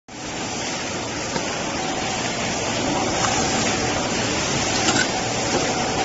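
Steady running noise of a vertical injection moulding machine: an even hum-and-hiss with a faint steady whine, and a few light clicks as USB cables are laid into the mould.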